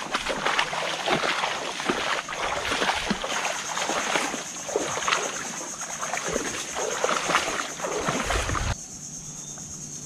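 Splashing and sloshing of a person wading and crouching in shallow mangrove swamp water, irregular and continuous, cutting off suddenly about nine seconds in. A steady high insect drone runs underneath.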